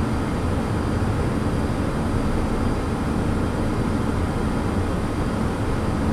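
Steady in-flight cabin noise of a Beechcraft Premier 1A climbing out: rushing airflow and the even drone of its twin Williams FJ44 turbofan engines.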